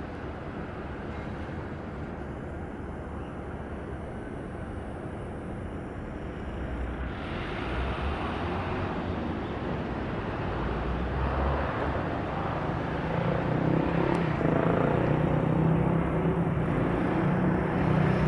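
Road traffic at a level crossing: motor-vehicle engine and tyre noise that grows louder through the second half, with a low steady engine hum near the end.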